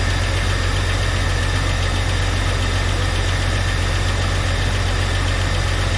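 Jeep Cherokee's replacement 4.0-litre inline-six engine idling steadily, heard from the open engine bay, on its first run after the engine swap.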